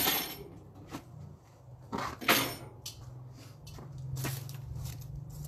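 Several sharp metal clanks and scrapes of steel tongs knocking against a charcoal grill and digging in the coals, the loudest right at the start and another about two seconds in.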